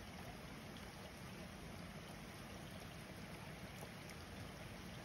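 Rain falling steadily on a street, an even hiss with a low rumble underneath.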